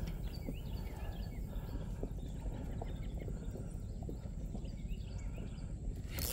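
Low wind rumble on the microphone, with faint, scattered bird chirps.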